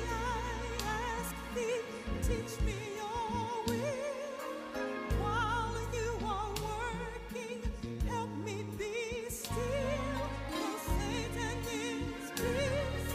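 Background music: a song in which a singing voice with strong vibrato holds long notes over an instrumental accompaniment with steady low notes.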